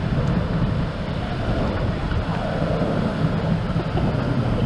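Steady rushing of fast-flowing floodwater across a road, with wind buffeting the microphone.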